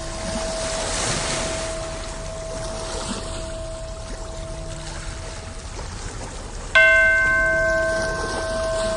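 Ocean waves washing under a long, ringing bell tone; the bell is struck again about seven seconds in and rings out slowly with several overtones.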